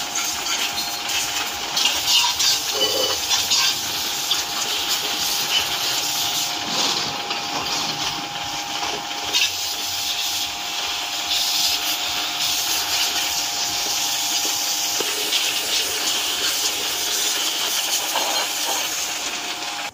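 Pressure washer jet blasting water onto greasy steel brake parts, a steady loud hiss of spray striking metal and wet concrete. A steady hum from the washer's pump runs underneath.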